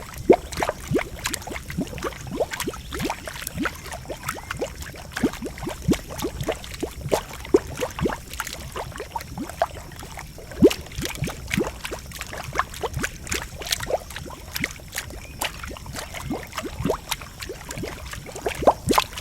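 A boiling geothermal pool bubbling, with many short, irregular pops, several a second, over a low steady rumble.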